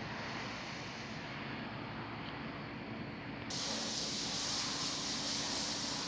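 Sharp click at the start, then a train at the station giving a steady hum and noise. A hiss comes in suddenly about three and a half seconds in.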